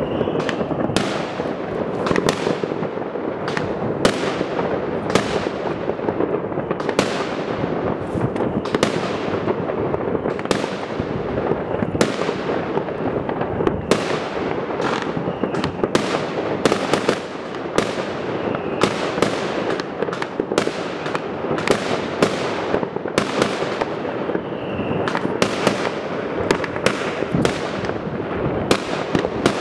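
Aerial fireworks going off one after another: sharp bangs, about one or two a second, over a continuous crackling din.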